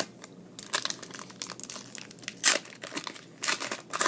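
Foil trading-card pack wrapper crinkling as it is handled and opened, in short irregular bursts, loudest about two and a half seconds in.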